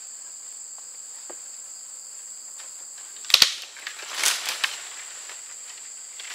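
Steady high-pitched drone of an insect chorus in summer woods. About three and a half seconds in come two sharp knocks, followed by a short rustling crackle.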